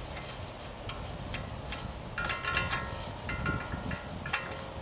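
Metal-on-metal clicks and clinks from the post hole digger's steel gearbox being worked onto the boom shaft by hand, with a few brief, clear metallic rings around the middle.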